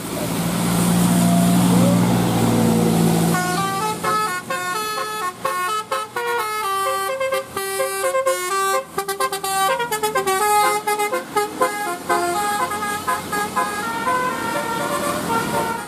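A bus's telolet musical air horn playing a tune in quick stepped notes, after a deep steady drone in the first few seconds.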